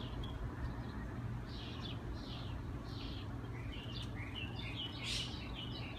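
Birds chirping in a string of short calls over a steady low background hum.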